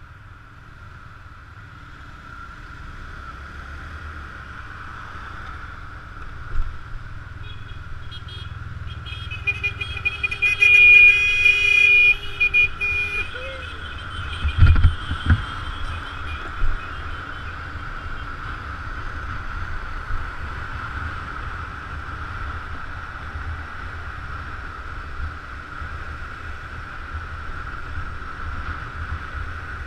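Motor scooter running steadily on the road, with a steady whine and low rumble. About eight seconds in come a few short beeps, then a held pitched tone of a few seconds, like a horn. A dull thump follows soon after.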